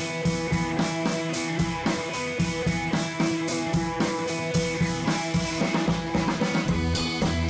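Background instrumental music with a steady drum beat and sustained notes.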